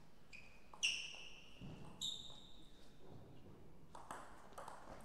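Celluloid-type table tennis ball bouncing on a hard surface three times, each bounce a short click with a brief pitched ping, the loudest about a second in. Near the end come a few lighter taps.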